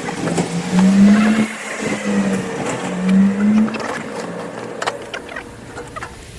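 A small motor running in three or four short bursts, its pitch rising a little in each, with scattered metallic clicks.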